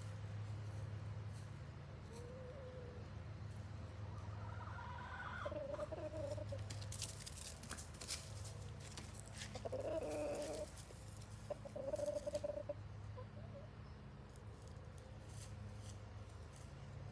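Chickens clucking: a few short, low calls now and then, with a cluster of light clicks about seven seconds in and a steady low hum underneath.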